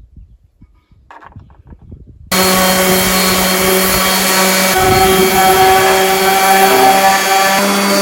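Electric power sander switching on about two seconds in and running steadily against the wooden drawer, a constant motor hum under a coarse rasp of sanding.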